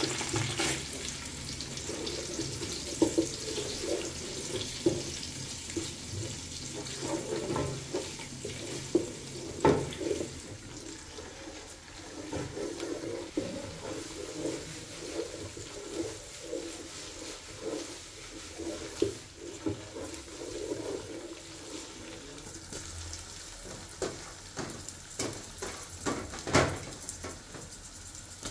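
Tomato paste and onions frying in oil in a metal pot, a steady sizzle, with a wooden spatula stirring, scraping and now and then knocking against the pot.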